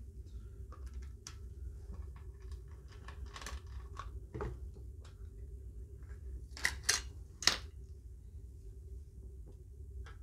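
Light plastic clicks and ticks as a small screwdriver undoes the single screw of a Kaiweets KC602 clamp meter's battery cover and the plastic cover is worked off. A few sharper clicks come close together about two-thirds of the way in.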